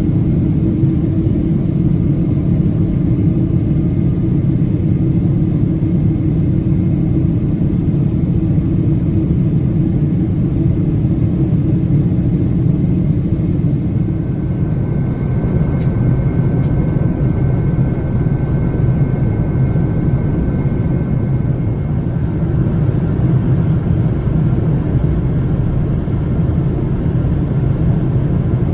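Steady drone of a Boeing 777-300ER's GE90 turbofan engines and rushing airflow, heard inside the cabin beside the engine. About halfway through the low hum eases and a faint high steady whine comes in.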